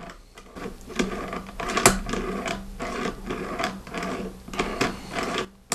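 Remington 700 SPS Tactical bolt action being worked back and forth by hand. The bolt slides and clicks repeatedly, with one sharp click about two seconds in. The action sounds a little gritty.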